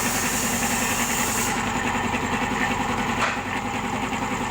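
Newly rewound 1.5 hp air compressor motor running steadily with an even hum. A high hiss sounds for the first second and a half, and a single click comes about three seconds in.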